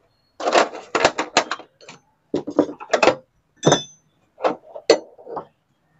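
Metal hand tools (screwdrivers, pliers, spanner) clattering against the steel body of a gas stove as they are picked up and set down: a string of sharp knocks and clinks, one of them, a little past the middle, with a brief metallic ring.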